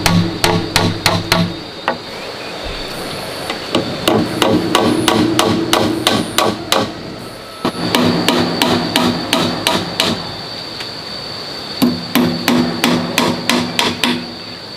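Rapid, hard knocks, about four a second, in bursts of two to three seconds with short pauses between them.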